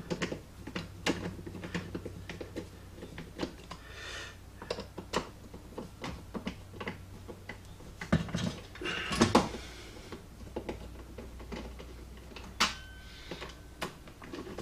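Hand Phillips screwdriver working screws out of plastic center-console trim: scattered light clicks and taps, with a louder clatter of knocks about eight to nine seconds in.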